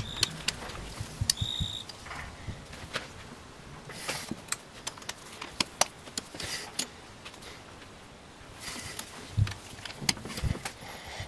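Socket wrench working on cylinder head bolts: irregular metallic clicks and clinks as the socket is seated and the bolts are turned, with short runs of quick clicking. There is a short high squeak about one and a half seconds in.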